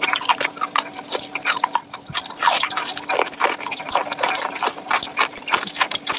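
Close-miked eating sounds: wet chewing and smacking, a quick irregular run of sharp clicks and squelches.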